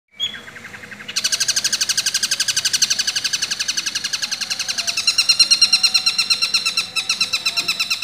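Long-tailed shrike (cendet) singing a long, fast run of shrill repeated notes, about ten a second, mimicking a kingfisher's call (tengkek buto). It starts loud about a second in, after a few fainter notes.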